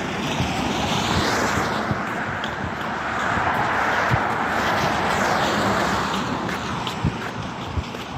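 Cars passing on a wet road: tyre hiss swells and fades twice. Under it are a runner's footfalls and some wind on the microphone.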